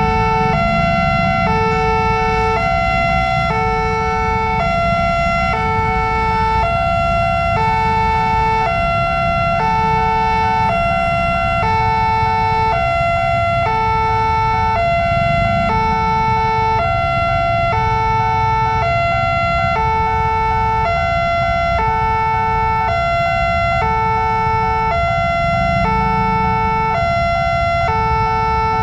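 Railway level-crossing warning siren of the Nippon Signal type, an electronic two-tone alarm switching back and forth between two pitches, each held just under a second, repeating steadily.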